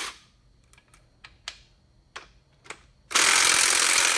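Power drill turning a socket to run nuts onto bell-housing studs stops at the start, followed by a few light metallic clicks. About three seconds in the drill starts up again and runs steadily and loudly.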